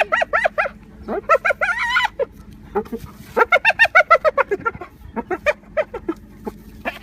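A person laughing in repeated bursts of rapid, high-pitched ha-ha pulses, with three long runs and scattered shorter laughs near the end.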